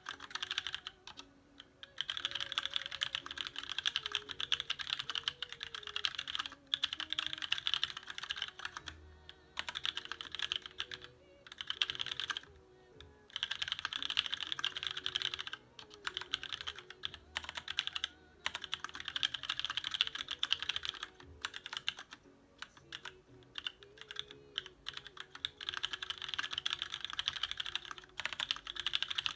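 Fast typing on a custom aluminium-cased TX1800 mechanical keyboard fitted with lubed Cherry MX Black linear switches on 50 g springs and thick ABS Cherry-profile keycaps: a dense run of keystrokes in bursts of a few seconds, broken by about ten short pauses. Faint music plays underneath.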